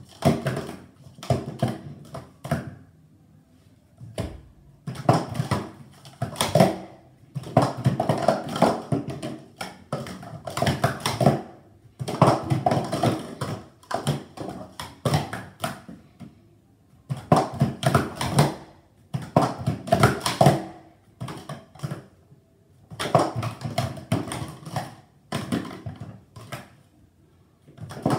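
Hard plastic speed-stacking cups clattering in quick runs of clicks and knocks as a 3-6-3 stack is built up and taken down. The runs repeat several times, each two to four seconds long, with short quiet pauses between them.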